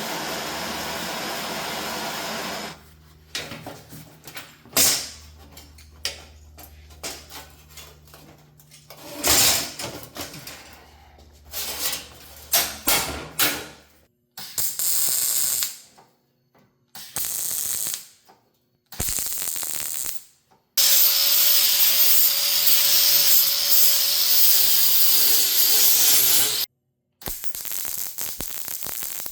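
Shop power tools working sheet metal in short cut-together bursts, with knocks and scrapes between them. Near the end a high-speed tool runs loudly for about six seconds with a steady whine whose pitch sags briefly, then a steady hiss follows.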